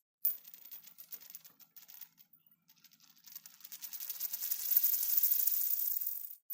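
A coin spinning on a hard surface. A short clatter just after the start fades into a few scattered ticks. From about three seconds a fast, high rattle grows louder as the coin settles, then cuts off abruptly just before the end as it falls flat.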